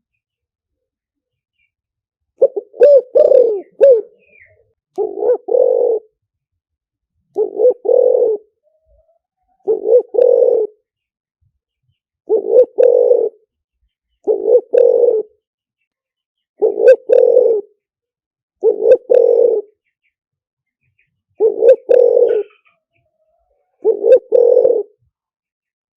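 Spotted dove cooing: a short phrase of two or three low coos, repeated about every two seconds after a silent start. This is the dove call used as a trapping lure.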